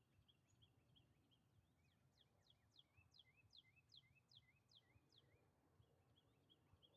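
Near silence, with a faint bird singing in the background: short repeated notes throughout and, in the middle, a run of about nine quick downward-sweeping chirps, roughly three a second. A faint low hum runs underneath.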